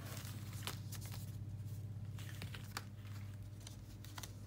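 Paper and card being handled: light rustling and a few short taps as a cardboard drink coaster and its paper envelope are moved about, over a steady low hum.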